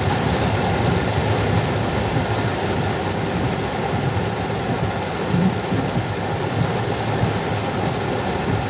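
Heavy rain falling on a car's roof and windscreen, mixed with the car's engine and tyres on the flooded road, heard from inside the cabin as a steady rushing noise.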